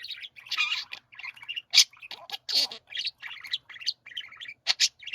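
Several budgerigars warbling and chattering together: a dense, continuous stream of chirps and warbles broken by sharp, scratchy chirps.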